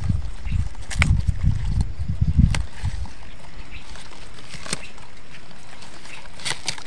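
A hand working through onion plants: low bumping and rustling for the first few seconds, then several sharp clicks scattered through the rest.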